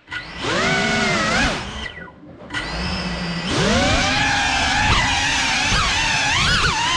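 FPV quadcopter's brushless motors whining, the pitch sliding up and down with the throttle. The whine drops out at the start and again about two seconds in while the downed drone sits on the floor, then spools back up and wavers as it lifts off.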